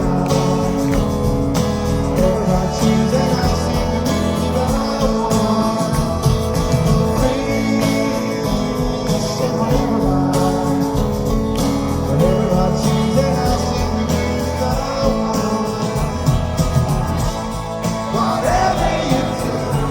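A live rock band playing a song with guitars and sung vocals.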